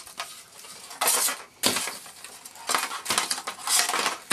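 Handling noise from assembling a pedestal heater: several short scraping, clattering bursts as the power cable is fed through the base and the hard parts knock together.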